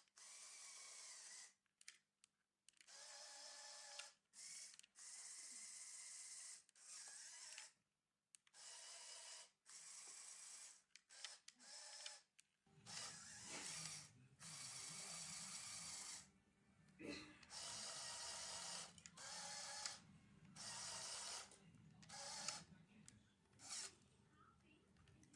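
Small electric motors and plastic gears of a Lego excavator whirring in short bursts, starting and stopping every second or so, as the model's functions are worked one move at a time. A low background noise comes in about halfway through.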